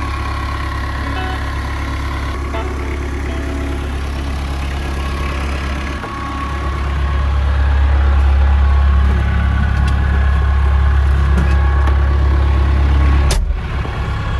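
Kubota B-series compact tractor's diesel engine running steadily. It gets louder about six seconds in, and near the end a sharp click is followed by a drop in level.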